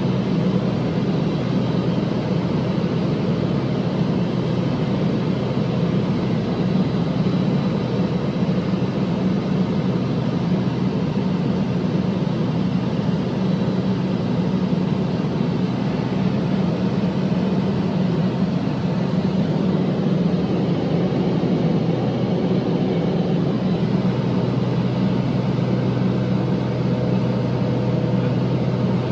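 Light aircraft's engine and propeller droning steadily in flight, heard from inside the cockpit; the tone shifts slightly about three-quarters of the way through.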